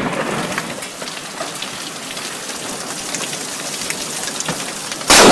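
Heavy rain falling steadily, with many small drop hits. Near the end, a sudden, very loud crack of thunder from a lightning strike close enough that its shockwave is felt.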